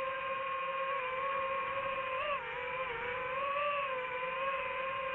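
DJI FPV drone's motors and propellers whining in flight, a steady high hum whose pitch dips and wavers around the middle.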